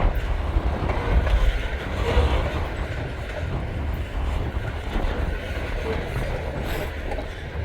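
Freight train cars rolling past on the rails, a steady wheel-and-rail rumble, with strong wind buffeting the microphone.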